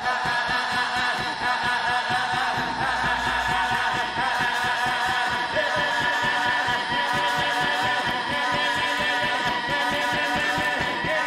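Live band music: strummed acoustic guitars under long, held vocal notes, steady in level throughout.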